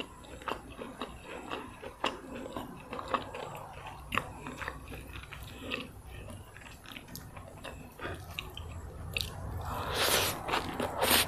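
Close-miked chewing and crunching of fried rice vermicelli with crisp bean sprouts, with many small wet clicks and crunches. Near the end there is a louder noisy burst.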